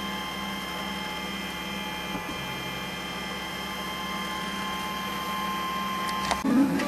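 3D printer running while it prints a plastic gear: a steady hum with a high whine from its motors and fan as the print head works. Guitar music comes in near the end.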